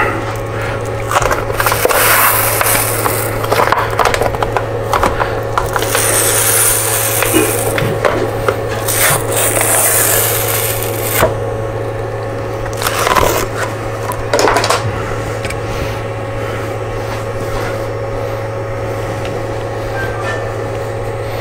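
Adhesive-backed magnetic sheet being peeled off a 3D printer's metal bed, giving several crackling, ripping bursts with scrapes and handling clicks between them, over a steady low hum.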